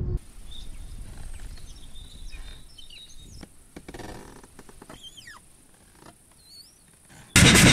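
Birds chirping faintly over a steady high hiss. A loud noise with a fast, regular pulse cuts in suddenly near the end.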